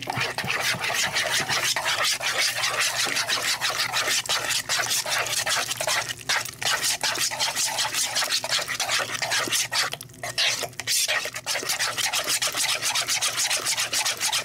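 Spoon stirring and scraping a thick, wet mixture of shredded cheddar, eggs and milk in a plastic mixing bowl: quick, continuous scraping strokes, pausing briefly about ten seconds in.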